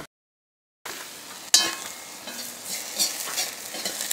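Onion and grated carrot frying in oil in a kazan while being stirred: a steady sizzle with frequent spoon scrapes and clicks against the pot. A sharp knock, the loudest sound, comes about a second and a half in, after a brief cut to dead silence near the start.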